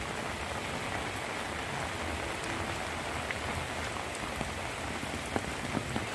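Heavy rain falling steadily, a dense even hiss, with sharper ticks coming more often near the end.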